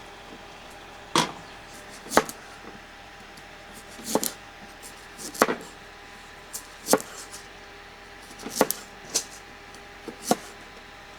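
A series of about ten sharp, short clicks and knocks at irregular intervals, roughly one a second, some in quick pairs, over a faint steady hum.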